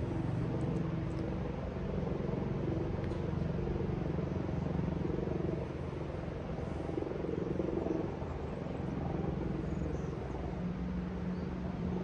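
An engine running with a steady, pitched hum over a low rumble, its tone shifting slightly near the end.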